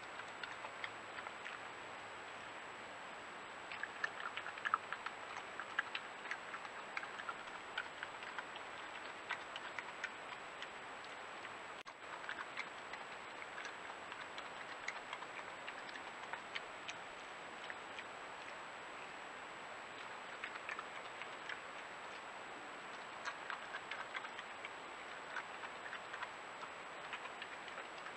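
European badger crunching peanuts: clusters of small, crisp clicks that come and go every few seconds, over a steady hiss and a thin high-pitched whine.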